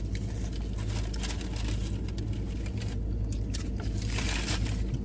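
Steady low hum of a car running, heard inside the cabin, under the small sounds of chewing and handling a paper burger wrapper; the wrapper rustle gets louder about four seconds in.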